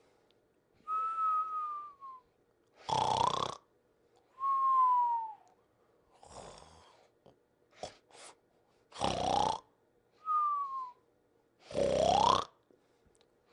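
Cartoon sleep sounds: a rasping snore rising in pitch alternates with a clear, falling whistle, three of each. A softer breath and two short clicks come a little past halfway.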